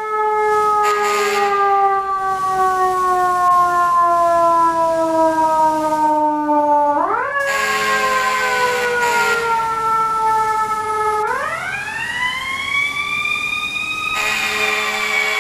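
Fire engine's Federal Q mechanical siren winding. Its pitch jumps up, then coasts slowly down for several seconds, is wound up again about seven seconds in, and after another slow fall climbs in a long rising wail to a peak near the end, then starts to sink.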